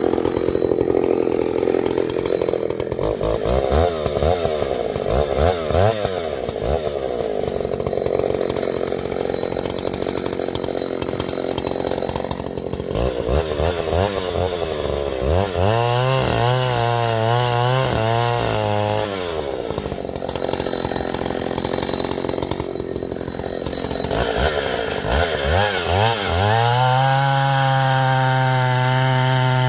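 Vintage Husqvarna L65 two-stroke chainsaw running and revving, its pitch swinging up and down, then rising and held at steady high revs near the end. Its carburetor's high-speed jet has just been re-tuned to about one turn out.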